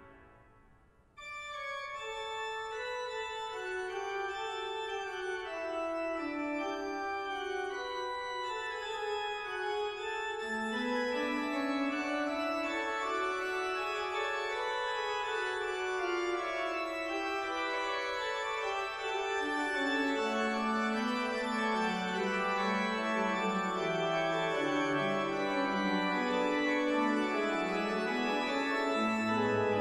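Pipe organ playing full chords. After a brief rest at the start in which the previous chord dies away, it comes back in about a second in and grows gradually louder. The lowest part wanders down and up, and a deep pedal note enters at the very end.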